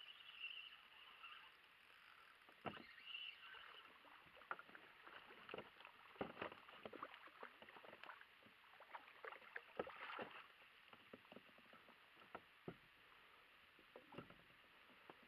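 A hooked fish thrashing at the surface beside a kayak: a quick run of small splashes and water slaps, busiest over the first ten seconds or so, then thinning to a few near the end.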